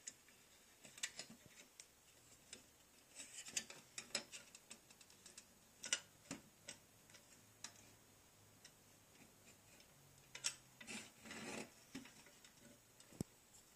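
Faint, irregular metallic clicks and short scrapes of a hand rivet-setting tool being handled and lined up against a pressed-steel toy pickup bed, with a longer patch of rubbing near the end.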